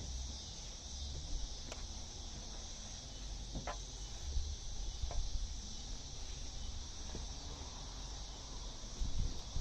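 Crickets chirping steadily in a continuous high-pitched band, with a few faint light clicks over it.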